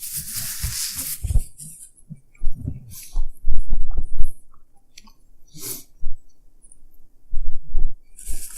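Close-miked chewing of a Philly cheese steak sandwich: soft, irregular low thuds and wet mouth clicks. A short hiss comes in the first second.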